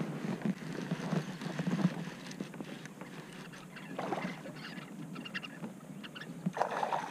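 Water lapping and sloshing against a kayak hull, with small clicks and rattles from a baitcasting rod and reel being handled.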